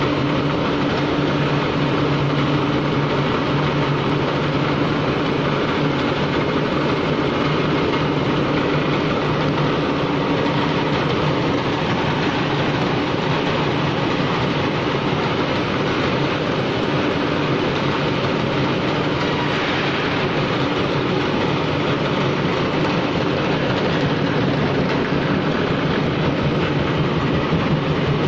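PE250×1200 jaw crusher running, a steady mechanical rumble with a dense rattle and a low hum.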